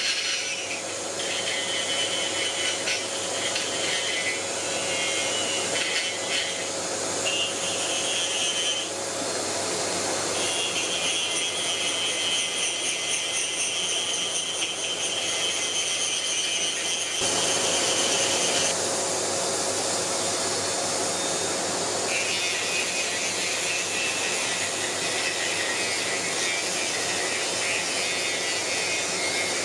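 Small handheld mini drill (rotary tool) with a sandpaper head running continuously, sanding the inside of a small wooden part. Its high whine steps up and down in pitch several times as the bit bears on the wood.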